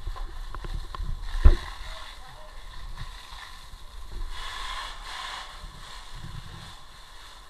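A fire hose being handled: several knocks and bumps, the loudest about a second and a half in, then a stretch of hissing water.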